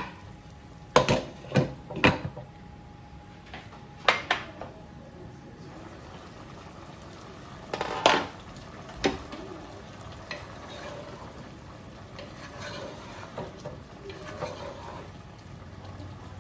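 A utensil knocking and scraping against a cooking pot while stirring a curry with coconut cream, a few sharp clacks in the first ten seconds, over the steady low hiss of the pot simmering.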